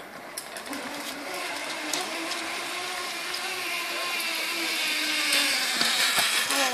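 Zip-line pulley trolley running along a steel cable, a steady whir that grows louder as the rider comes close.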